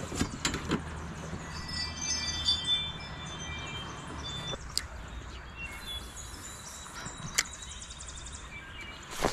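Light clicks and knocks of gear being handled in a plastic sit-on-top kayak, most of them in the first second, with a few high, steady whistling tones about two seconds in.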